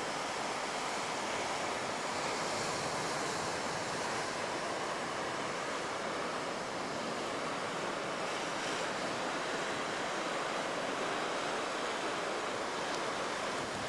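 Sea surf breaking and washing over a rocky shoreline: a steady rush of waves.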